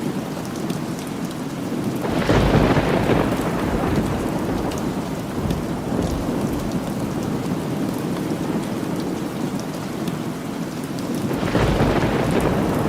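Steady rain falling, with two rolls of thunder: one rumbling in about two seconds in, another building near the end.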